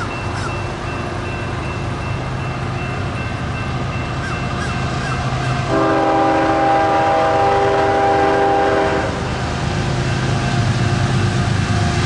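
Approaching diesel freight train led by a CSX GE ES44AC GEVO locomotive, its steady low rumble slowly growing louder. About six seconds in, the locomotive's horn sounds one long blast of about three and a half seconds, a chord of several tones.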